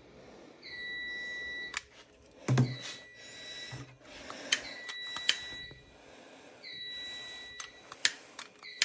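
Fire alarm sounder beeping a steady high tone, each beep about a second long and repeating roughly every two seconds, as the system sits in alarm from a smoke detector test. Sharp clicks and a couple of low knocks from handling come between the beeps.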